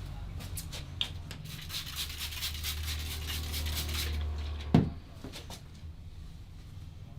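Barber's massage on a client: hands rubbing and patting the skin in fast strokes, then one loud sharp smack or crack near the five-second mark.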